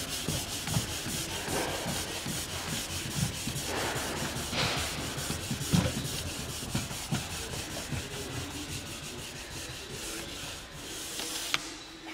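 Cork block rubbed briskly back and forth along a waxed ski base, a steady scrubbing rasp with small knocks. The friction polishes and warms the freshly dried liquid wax into the base. The rubbing fades near the end, and there is a sharp click.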